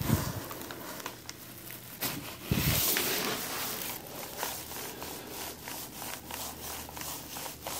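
Hands and body moving on a padded chiropractic treatment table. There is a short thump at the start, then a louder, sudden thump about two and a half seconds in that fits an adjustment thrust, followed by light rubbing and faint clicks.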